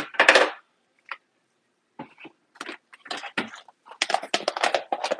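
Glassware, mugs and plastic containers being handled and set onto kitchen cabinet shelves: a short clatter at the start, then scattered light clinks and knocks that grow busier toward the end.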